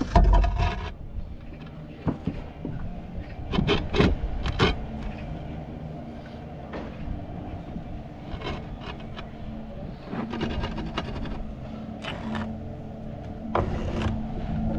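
Hand work on a tiled roof: clay roof tiles and tools knocking, clinking and scraping as the tiles are handled, with several sharp knocks in quick clusters. A steady low hum comes in about halfway.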